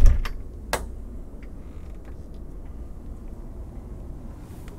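A door being worked: a loud knock with a low thump, then a sharp latch click about three-quarters of a second later, over a low steady hum.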